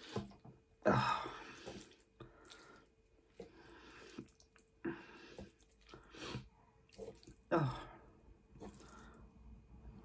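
Wet eating sounds of someone chewing and slurping cheesy spaghetti, in irregular bursts. The loudest bursts come about a second in and again about two and a half seconds before the end.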